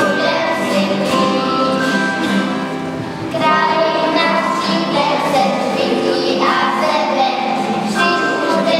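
Group of children singing a Christmas song.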